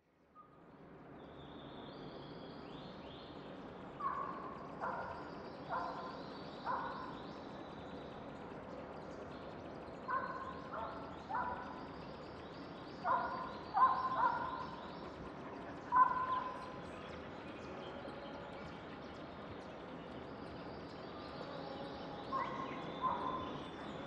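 Rural outdoor ambience with birds calling: a steady low background with thin high chirps throughout, and about a dozen short, louder calls, some in quick pairs, starting about four seconds in.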